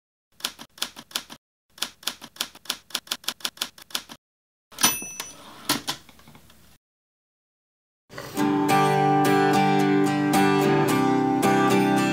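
Typewriter keys clacking in two quick runs, then the carriage bell rings once and the carriage is returned. After a second and a half of silence, an acoustic guitar starts strumming chords.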